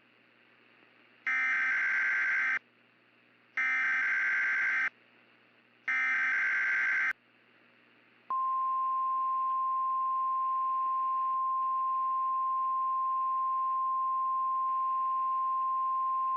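Emergency Alert System SAME header: three identical bursts of buzzy digital data, each about a second and a half long, then after a short gap a single steady 1050 Hz NOAA Weather Radio warning alarm tone starting about eight seconds in. The sequence marks the start of a new weather alert, here a tornado warning.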